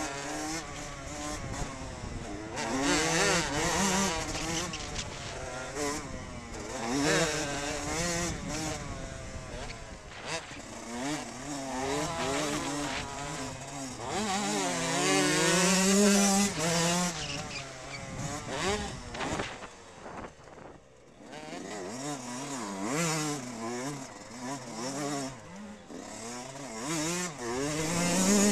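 Yamaha motocross bike engine heard from on board, revving up and falling back over and over as the rider works the throttle and gears around a dirt track. About two-thirds of the way through it drops off briefly, as the throttle is shut, then picks up again.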